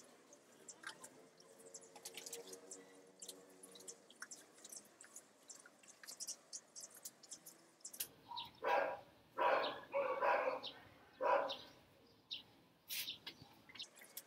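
Water poured by hand from a small plastic pitcher into potted plants, heard as faint drips, splashes and ticks. Partway through, an animal calls loudly five times in about three seconds.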